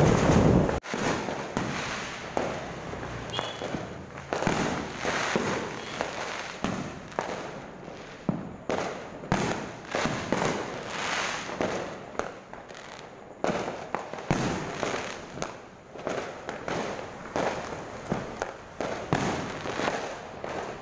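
A brief loud rush of road noise from the moving vehicle cuts off suddenly just under a second in. Then many aerial fireworks burst and crackle: a dense, irregular run of bangs and pops, several a second, some near and sharp, others fainter.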